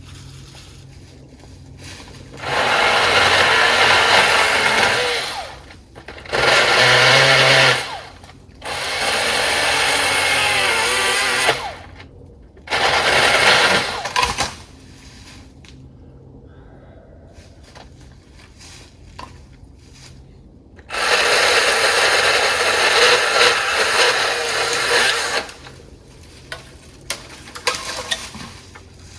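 Milwaukee M18 battery pole saw's electric chainsaw head running and cutting wood in five separate bursts, each a few seconds long, with short pauses between them.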